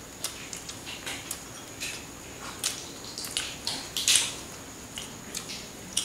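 Chewing, lip-smacking and small crunches of two people eating roasted egret with their hands: irregular short wet clicks, about three a second.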